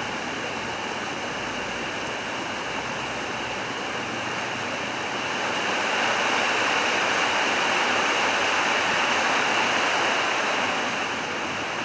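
River water rushing over boulders in a shallow rocky stream, a steady rush that grows louder about halfway through and eases near the end.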